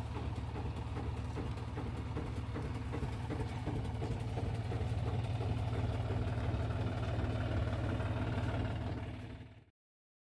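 Tractor diesel engine running steadily, fading out near the end.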